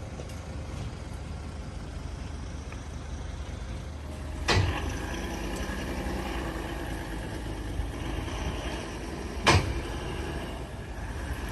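Two sharp thuds about five seconds apart, like a 2022 Lexus LX's doors being shut, over a steady low rumble from the vehicle.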